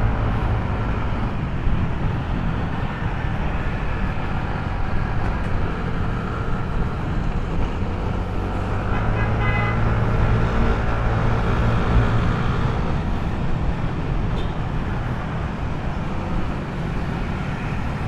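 Riding a motor scooter through city traffic, heard from a helmet camera: steady engine and wind rumble, swelling for a few seconds around the middle, with a brief horn-like tone about nine seconds in.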